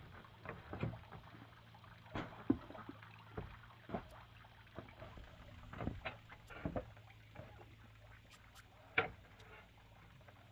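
Irregular light knocks and clicks, unevenly spaced, over a steady low hum.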